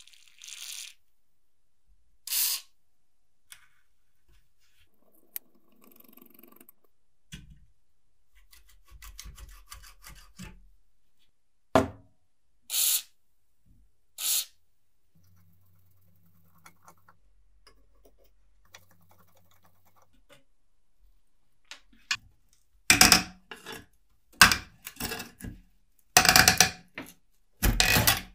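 WD-40 aerosol sprayed in short hisses through its straw onto rusted metal parts, with small metallic clicks and knocks between the sprays. Near the end comes a run of louder, rough bursts as hand tools work the rusted parts.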